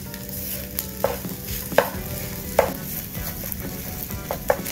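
Fried rice frying in a nonstick pan with a steady sizzle, while a wooden spatula stirs and scrapes through it. The spatula knocks sharply against the pan about five times, the last two close together near the end.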